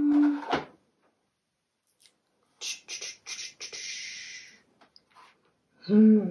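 A woman's held, thinking "hmm" that stops about half a second in. Midway come a few clicks of the tongue and a breathy hiss through the lips, and near the end a short "hmm" that rises and falls in pitch.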